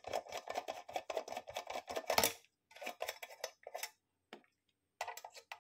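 Small screwdriver backing the screws out of a PCM Tuner's aluminium case: quick metallic clicks and scrapes in short runs, with a pause about four seconds in.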